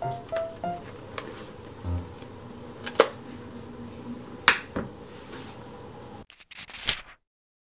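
Aluminium bento box being handled: the metal lid pressed on and an elastic band stretched around it, giving scattered sharp clicks and taps, two louder ones about three and four and a half seconds in. The sound cuts off abruptly just after seven seconds.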